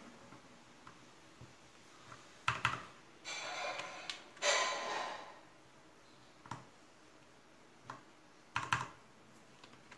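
XDA-profile plastic keycaps being handled and pressed onto mechanical keyboard switches: scattered sharp clicks, with two longer scraping rustles a few seconds in.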